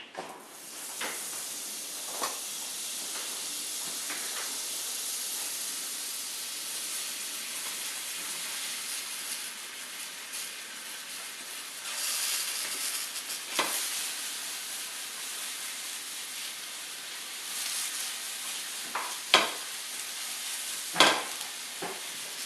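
Mushrooms sautéing in butter and oil in a pan: a steady sizzle, with a few sharp knocks as they are stirred.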